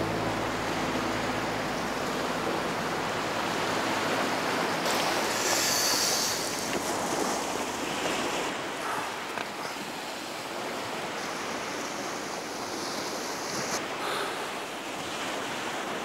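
Sea surf: choppy waves washing in steadily against the shore. A held music chord fades out in the first couple of seconds.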